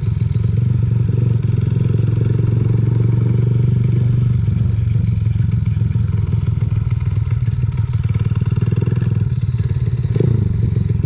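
Monkey mini bike engine running steadily with the dry clutch clattering, the loose metallic rattle typical of an open dry clutch.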